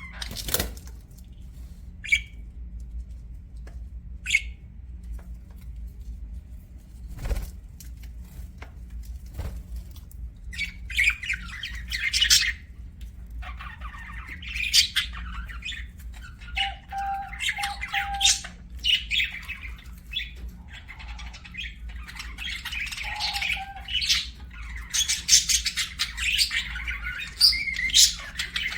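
Budgerigars chirping and squawking, sparse at first with a few sharp clicks, then growing into busy chatter about ten seconds in and busiest near the end. A steady low hum runs underneath.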